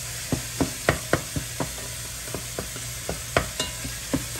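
Ground turkey sizzling in hot olive oil in a pot on high heat, with a spatula clicking and knocking against the pot in irregular strokes as it is stirred.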